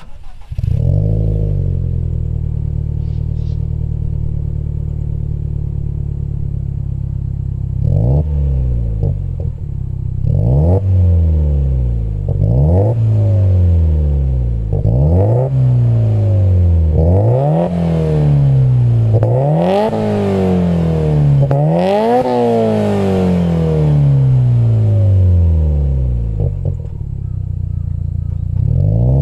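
Subaru WRX STI's turbocharged 2.0 L EJ20 flat-four through an HKS aftermarket muffler, idling steadily, then blipped through about a dozen quick free revs that climb higher toward the middle before it settles back to idle near the end.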